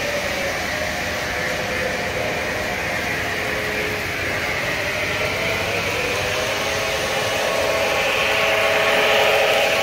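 O-gauge MTH model of a BNSF Dash 9 diesel locomotive running on three-rail track: a steady hum and hiss of its sound system's diesel engine, the motors and wheels on the rails, and its smoke unit. It grows louder near the end as the locomotive comes close.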